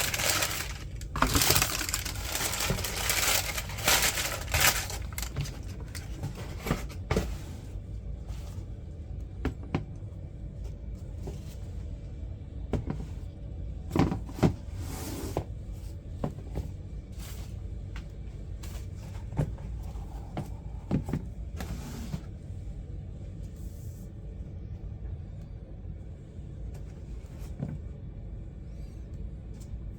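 Packaging paper crinkling for the first few seconds. After that come scattered light knocks and rustles of handling over a steady low hum.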